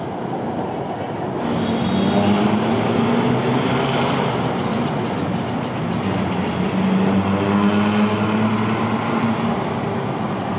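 Steady drone of a motor vehicle's engine over background traffic noise, swelling twice as it passes.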